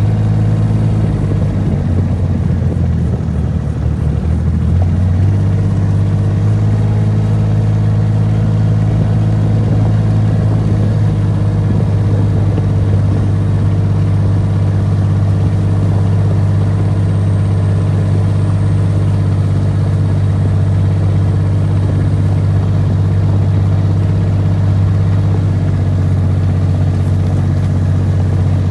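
A large engine running loud and steady, shifting to a slightly different steady speed about five seconds in.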